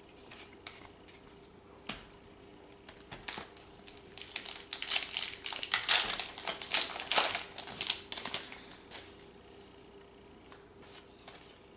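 Trading card pack wrapper crinkling and being crumpled in the hands, loudest for a few seconds in the middle, with light clicks and rustles of cards being handled around it.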